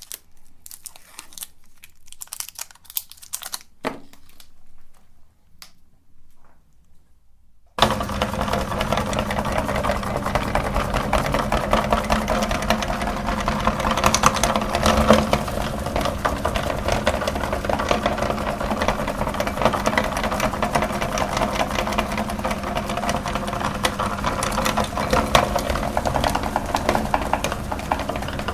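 Scattered crinkling and rustling for the first several seconds. Then an electric meat grinder switches on abruptly about eight seconds in and runs steadily with a constant motor hum, grinding chocolate sticks.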